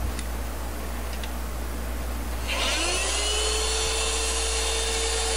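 Heat gun switched on about halfway through: its fan motor spins up with a rising whine, then runs steadily with a rush of hot air, shrinking heat-shrink tubing over a soldered wire bundle.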